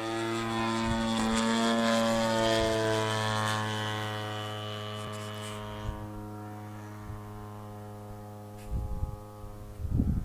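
Radio-controlled Slick 50 model airplane's motor and propeller droning at a steady pitch, gradually fading after about three seconds as the plane moves off. A few low bumps come near the end.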